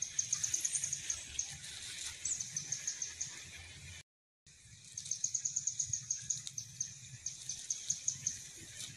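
A small bird's high, short chirps repeating quickly, about eight a second, in several runs with short pauses between them. The sound cuts out for a moment near the middle.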